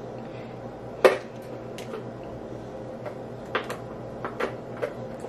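Kitchen knife cutting through sausage and knocking on a cutting board: about ten short, irregular clicks and taps, the loudest about a second in.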